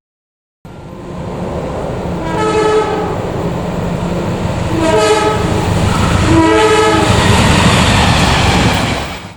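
Train horn sounded in three short blasts, each a chord of several pitches: a driver's greeting to trainspotters. The train's running noise grows louder as it approaches and passes close by.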